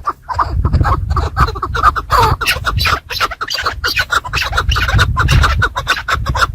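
Chukar partridges calling in runs of short falling notes, over a constant scratching and rustling.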